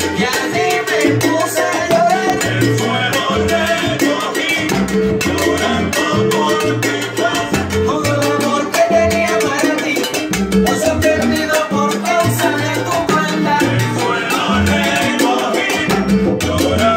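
Live salsa band playing: congas and timbales over a syncopated bass line, with voices singing along.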